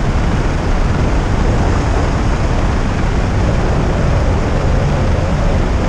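Steady wind rushing over a helmet camera's microphone under an open ram-air parachute canopy, loud and heaviest in the low end.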